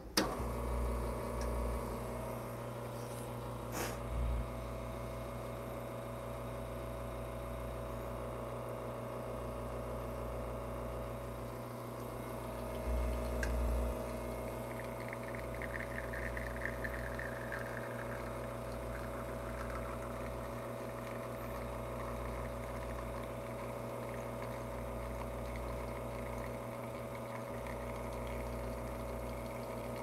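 Lelit espresso machine's pump running steadily through a shot, a constant hum as espresso flows into the cup.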